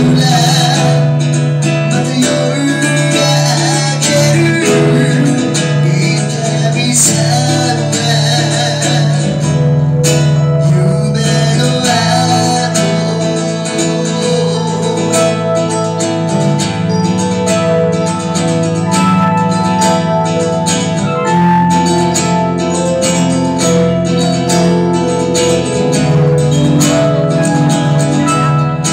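Live acoustic performance: an acoustic guitar and an electronic keyboard play a song together, with a singer's voice through the PA.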